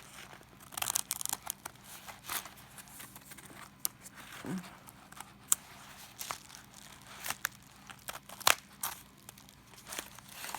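A mailed package being handled and torn open: irregular crinkling and tearing of the packaging, with sharp snaps and clicks scattered through.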